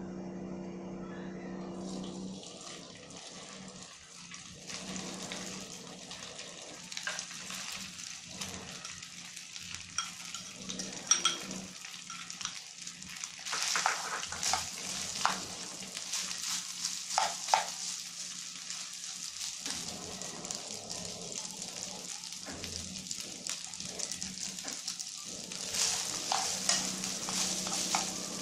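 Cooked rice sizzling in a hot non-stick frying pan, starting about two seconds in as the rice goes into the pan. It is stirred and broken up with a ladle and then wooden chopsticks, which tick and scrape against the pan throughout.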